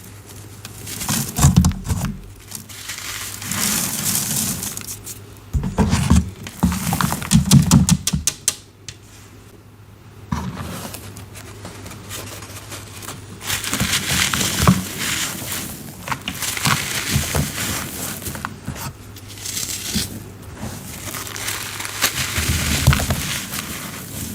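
Cornstarch being crushed and crumbled, giving irregular crunching and crackling with a few heavier crunches.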